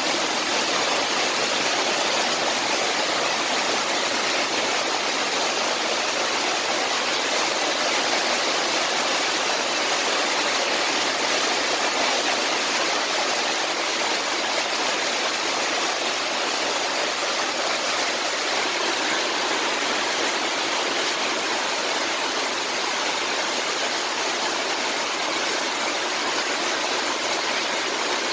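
Heavy rain falling steadily, splashing on a wooden deck and pavement.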